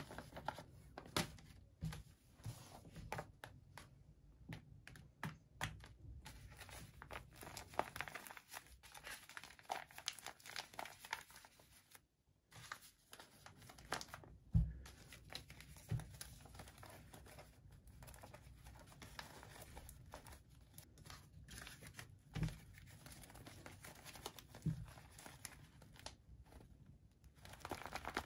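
Glossy tape-covered paper squishies being handled and squeezed, crinkling and rustling irregularly, with a few soft knocks as they are set down or bumped together.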